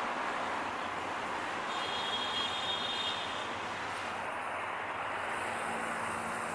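EMD GT18LA-2 diesel-electric locomotive hauling a passenger train as it approaches, with steady running noise from its engine and the train on the rails. A low steady engine tone comes up about five and a half seconds in.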